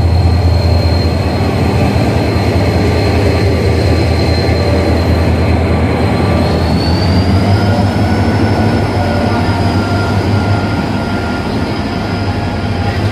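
Diesel locomotive hauling a passenger train out of a station at close range: a loud, steady low engine drone over wheel and rail noise. A thin high whine rides on top and climbs in pitch about halfway through as the train pulls away.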